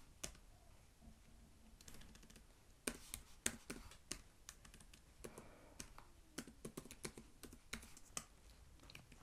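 Typing on a computer keyboard: faint, irregular key clicks in short runs, with pauses between.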